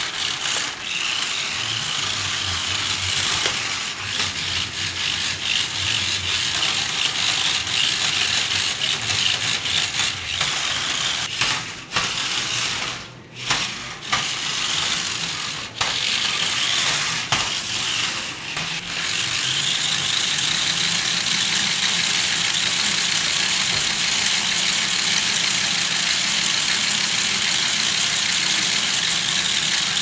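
Small battery-powered remote-control stunt car's electric motors and gears whirring as it drives over paving stones. The whir cuts out briefly a few times around the middle, then runs steadily to the end.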